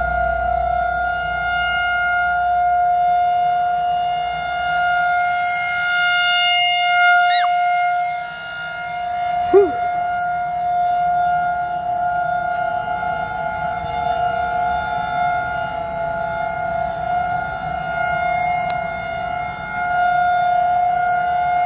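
Outdoor tornado warning siren sounding a steady, held tone during its scheduled test. A brief sweeping chirp cuts in about halfway through.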